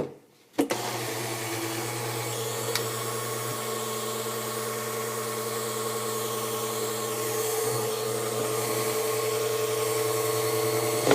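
Electric kitchen blender switched on with a click and its motor running steadily with a steady whirring hum, growing louder toward the end.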